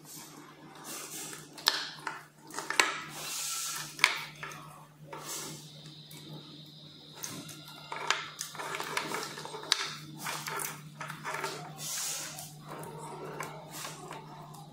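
Wiring harness connectors in an electric scooter's deck being handled and unplugged: plastic plugs clicking, with a few sharp clicks, and wires and plastic rustling, over a steady low hum.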